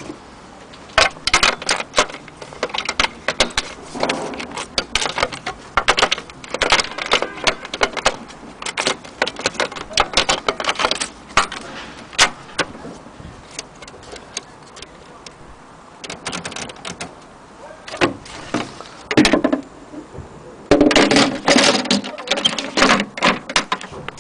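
Vintage Triumph Adler manual typewriter being typed on: quick runs of sharp key strikes in bursts, with short pauses between runs.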